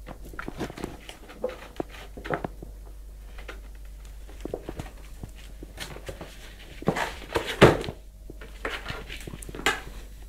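A cat scrambling into a cardboard box: cardboard rustling and scraping, with scattered knocks of paws and box against the floor. The loudest scraping comes a little past halfway, with another burst near the end.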